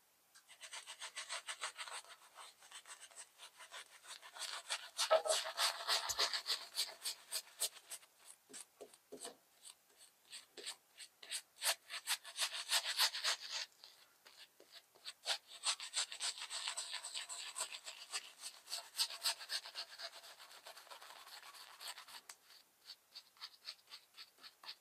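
Wet shaving brush swished quickly over the face, working Proraso shaving-soap lather onto the skin: a long run of fast bristly strokes in spells with short pauses.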